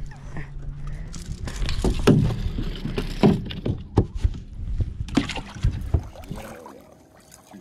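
A run of knocks and thumps from people moving about and handling fish and gear in a fishing boat. A steady low hum sounds for about the first second, and the knocks die away near the end.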